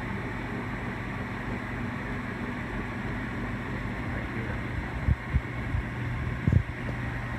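Sunnen MBB-1660-K honing machine running at about 800 RPM, a steady hum from its spindle motor and belt drive. A few short low thumps come from about five seconds in.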